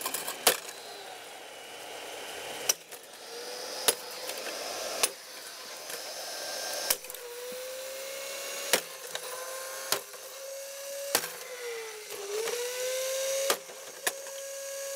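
Sledgehammer blows striking the plastic housing of a running Sunbeam Retro Mixmaster MX6800 mixer, about ten sharp cracks a second or two apart. Under them the mixer's motor whines steadily, its pitch dipping briefly near the end and then recovering.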